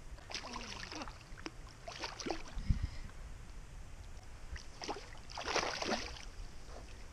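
A hooked bream splashing at the water's surface beside a small boat: a few short splashes early on, a dull knock a little under three seconds in, and the biggest burst of splashing about five to six seconds in.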